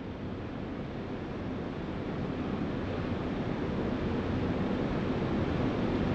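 A steady rushing noise like wind or distant surf, slowly swelling louder.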